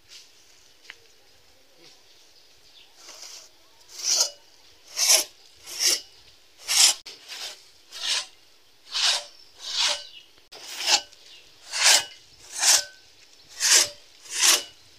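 Hand saw cutting through mango wood: rasping strokes about once a second, starting about four seconds in.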